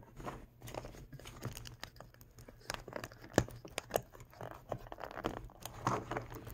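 Thin plastic wrapping crinkling and tearing, with scattered small clicks and taps, as a Mini Brands capsule ball is handled and opened. A couple of sharper taps come about midway.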